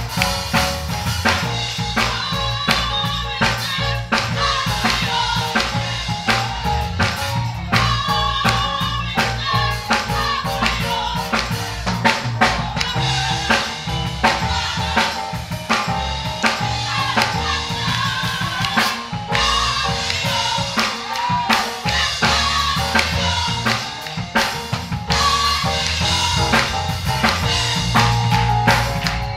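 Gospel band music with a steady drum-kit beat, snare and bass drum, over a strong bass line.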